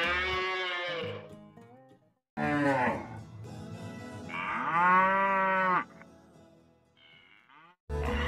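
Cattle mooing three times with short pauses between; the third moo is the longest and loudest.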